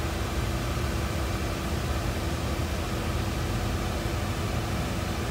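Steady hum and hiss of running fans or ventilation, even throughout, with a faint constant low tone.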